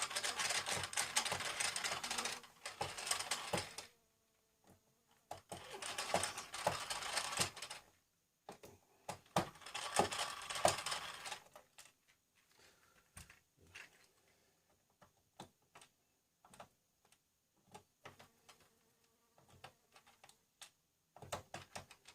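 Screwdriver work on a computer's plastic case: three stretches of dense scraping and rapid clicking as a small screw is worked out, then scattered light clicks and taps for the rest of the time.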